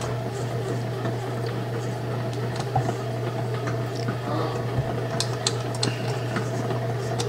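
Electric bread machine's motor running steadily as it kneads dough on its dough cycle: a constant low hum. A few light clicks and taps come from the dough being pulled off a stand mixer's dough hook.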